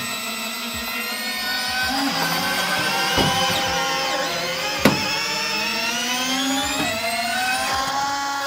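Electron ER40 EVO electric landing-gear retracts extending the gear of a large RC Airbus A380 model: several small electric gearmotors whining together in overlapping tones that drift and mostly rise in pitch, with a sharp click about five seconds in.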